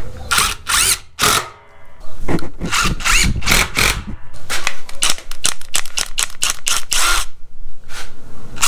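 Cordless impact driver hammering as it starts 3-inch lag screws into a wooden beam, run in short irregular bursts with a brief pause just before two seconds in, stopping about a second before the end.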